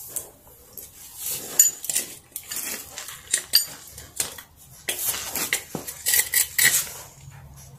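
Irregular metal clinks, taps and scrapes of hand tools and bolts on metal car parts, with a few short ringing clinks and a busier run of clatter about five to seven seconds in, as the bracket of an ABS unit is unbolted.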